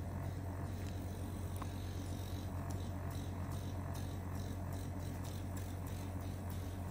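A steady low hum, with faint soft ticks at an even pace, about four a second, in the middle.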